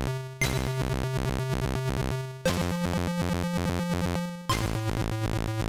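ZX Spectrum AY sound-chip music: chiptune with a held square-wave bass note under a fast repeating pattern of beeping tones, the bass note changing about every two seconds.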